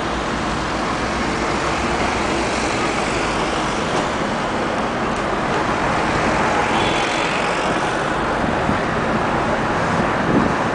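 Street traffic heard from inside a moving car: a steady rush of engine, tyre and road noise with other vehicles passing close by.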